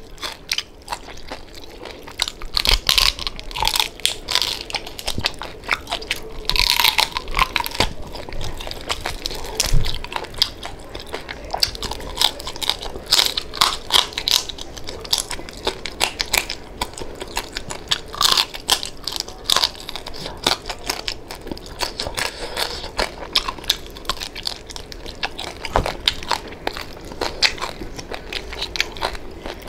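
A person biting and chewing crispy deep-fried pork knuckle (crispy pata), with many sharp, irregular crunches of the crackling skin.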